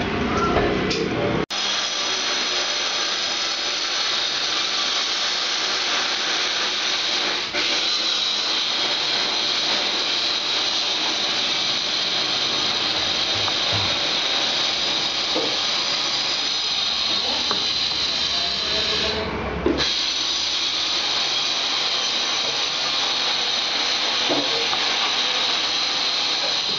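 A steady hiss throughout, with a few faint taps of a kitchen knife cutting spring onions on a wooden chopping board.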